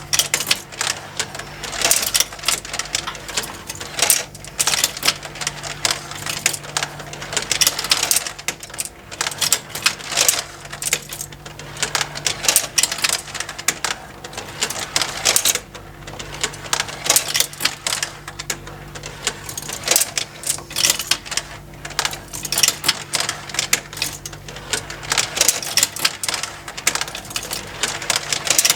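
Motorized plastic marble run: a dense, irregular clatter of glass marbles clicking and rattling down plastic tracks, over the faint hum of the small motor driving the plastic lifting conveyors.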